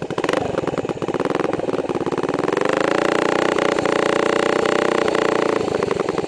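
440 snowmobile two-stroke engine on a go-kart running under throttle; its pitch climbs from about a second and a half in, then holds high and steady, with a brief dip near the end.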